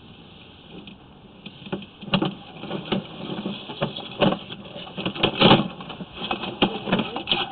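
Sewer inspection camera pushed through a sewer lateral pipe, its head and push rod knocking and scraping irregularly against the pipe; the clatter starts about a second and a half in and is loudest about five and a half seconds in.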